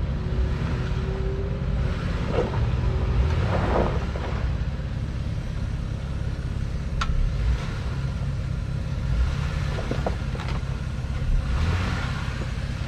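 Jeep Wrangler Rubicon engine running at low revs as the Jeep crawls slowly over rocks, with a continuous low rumble and a few brief knocks scattered through.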